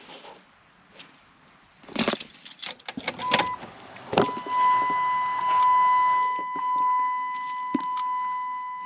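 A short clatter and rattle of handling, then a steady high electronic beep tone that blips once and then holds for about six seconds.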